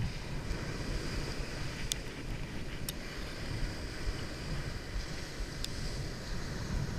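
Wind buffeting the microphone over breaking ocean surf, a steady rumbling hiss, with a few faint sharp clicks scattered through it.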